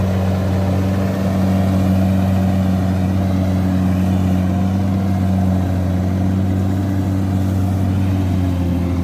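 Kubota CD93 combine harvester running steadily with an even, unchanging low engine hum as it works slowly through soft, boggy rice paddy.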